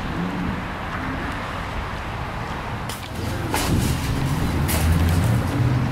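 A car driving, heard from inside: a steady low road and engine rumble. About three seconds in it turns louder and deeper, with a few short clicks.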